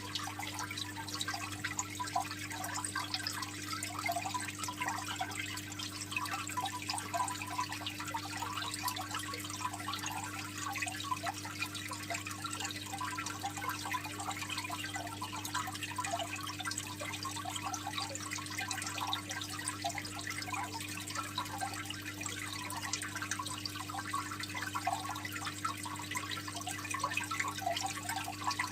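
Aquarium water trickling and splashing in a continuous, irregular patter, over a steady low hum.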